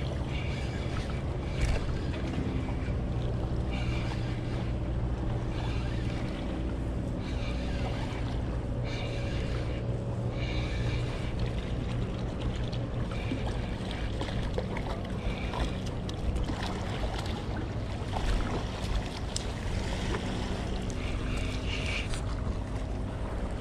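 A spinning reel, a Shimano Sustain 3000HG, being cranked in short spells against a hooked fish. Under it are steady wind and water washing against the rocks, and a low, even motor drone.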